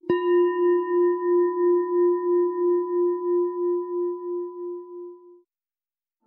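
A bell struck once, ringing with a low pulsing waver and a few higher overtones, dying away over about five seconds.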